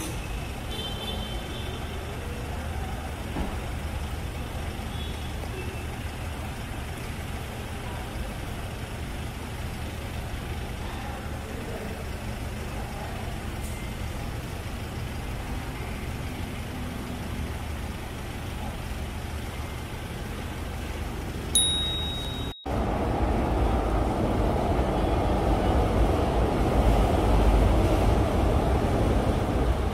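Steady low rumble of city street traffic. About two-thirds of the way in there is a short high beep and a momentary dropout, after which the traffic rumble grows louder.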